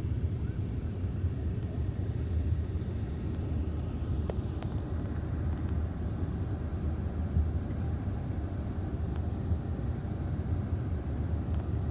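Steady low vehicle rumble, with a few faint ticks.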